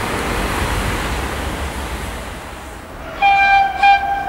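Rushing noise of a passing train fading away, then an approaching electric train sounds its horn: one blast of about half a second around three seconds in, then a short toot just before the end.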